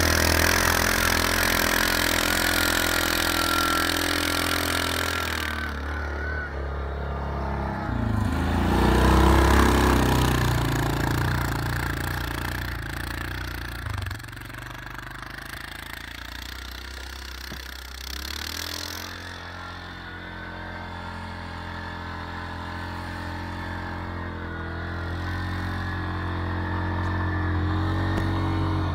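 Quad bike (ATV) engine running under load as it ploughs through deep snow, revving hardest about eight to ten seconds in. It then fades as the quad moves off up the slope and grows louder again as it comes back toward the microphone.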